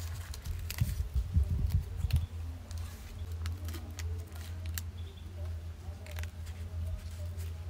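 Dry, charred banana-leaf wrappers crackling and tearing in scattered sharp crackles as they are peeled open by hand, over a steady low hum.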